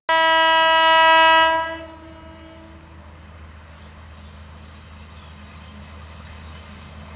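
Electric locomotive horn, one blast about a second and a half long that cuts in suddenly and dies away with an echo by about three seconds in. After it comes a low steady rumble as the train approaches.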